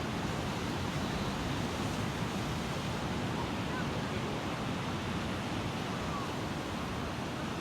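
Steady rushing noise of wind and surf, with no distinct events.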